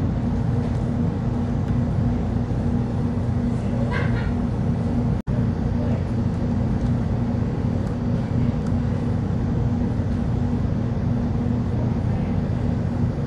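Steady low hum of restaurant background noise. A faint brief higher sound comes about four seconds in, and the hum cuts out for an instant a little after five seconds.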